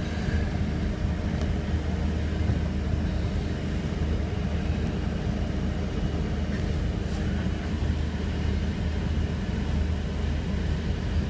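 Vauxhall Omega's engine running at a steady low drone, heard from inside the car's cabin.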